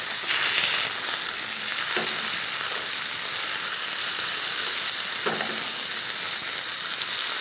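Thin chicken breast fillets sizzling steadily as they sear in hot oil in a stainless steel frying pan, while a metal spatula turns them and touches the pan a couple of times, about 2 and 5 seconds in.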